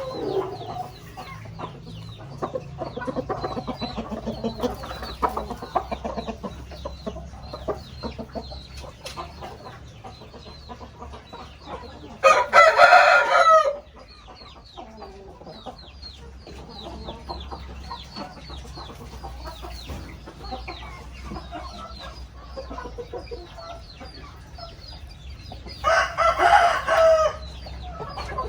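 Chickens clucking and calling continuously, with a rooster crowing loudly twice: once about twelve seconds in and again near the end.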